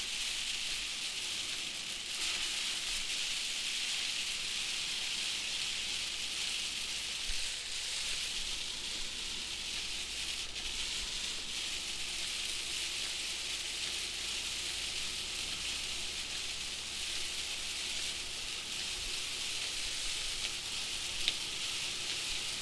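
Rain falling steadily, an even hiss throughout, with a single faint click near the end.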